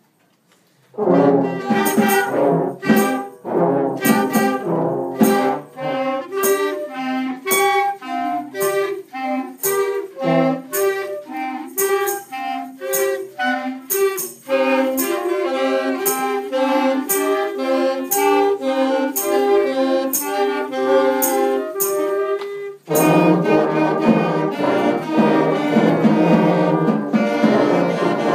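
Young students' concert band playing: flutes, saxophones and brass over a steady percussion beat. The band comes in about a second in after a moment of quiet, the sound thickens about halfway, and it grows fuller and louder near the end.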